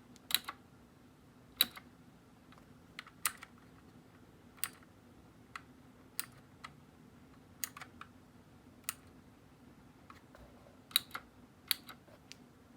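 Keychron K6 mechanical keyboard with blue switches, single keys pressed one at a time about a second apart, with a few quick pairs: sharp, separate key clicks rather than continuous typing.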